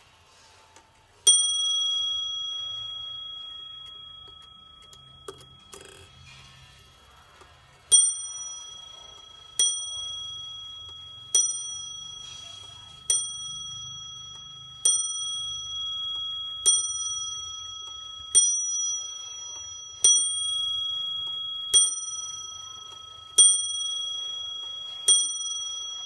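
Warmink Wuba wall clock striking the hour on its bell. One strike comes about a second in, then from about eight seconds in a slow, even count of strikes about every 1.7 seconds, eleven in all, each ringing out and slowly dying away. The hands stand at twelve, so this is the striking of twelve o'clock.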